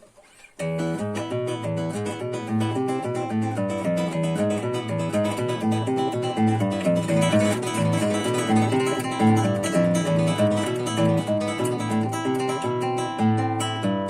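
Rodriguez RC644 MN classical guitar with Hannabach 500HT nylon strings, played as a fast, continuous run of fingerpicked notes over a bass line, starting about half a second in.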